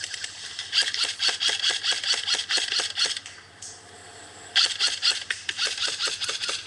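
Airsoft guns firing in rapid clicking bursts of about eight to ten shots a second. There are two long bursts with a short pause between them, the second starting about halfway through.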